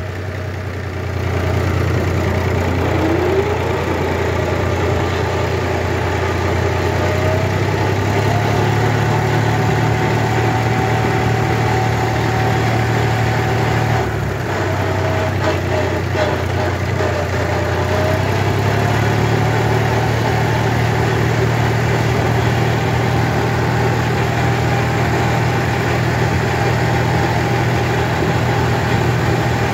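David Brown 880 tractor's diesel engine running under way on the road, warming up on its first run after a service. Its note climbs as it picks up speed in the first few seconds, eases off briefly about halfway through, then runs steadily.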